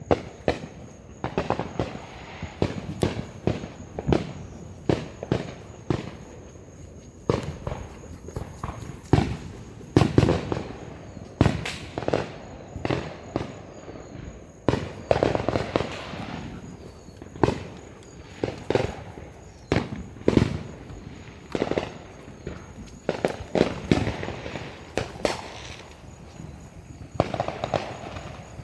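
Fireworks and firecrackers going off in irregular volleys of sharp bangs and crackles, sometimes several a second, with the louder reports echoing.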